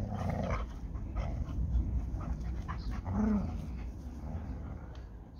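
A Hungarian Vizsla and a yellow Labrador Retriever tussling over a ball in play: panting and scuffling with scattered clicks, and a short low growl about three seconds in.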